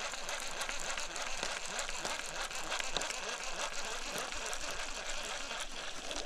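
Baitcasting reel being cranked, winding line in: a steady whir of the reel's gears with many fine ticks.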